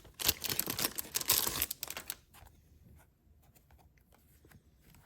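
Packaging being torn open and crinkled in the hands, a dense crackling for about two seconds. It then drops to a few faint light clicks of handling.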